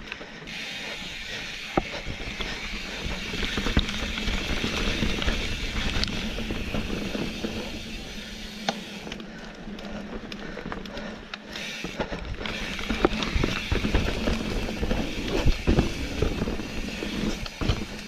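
Mountain bike ridden along a dirt singletrack: a steady rush of tyres rolling on the trail, with frequent clicks and knocks as the bike rattles over bumps.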